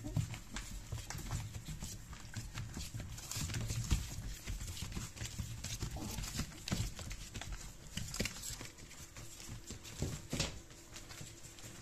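Three-week-old puppies walking and scrabbling on spread newspaper, the paper rustling and crinkling in many irregular short crackles.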